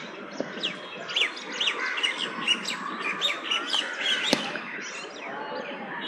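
Mynas chattering: many quick overlapping chirps and whistled calls, some sliding up or down in pitch. A single sharp click sounds a little past four seconds in.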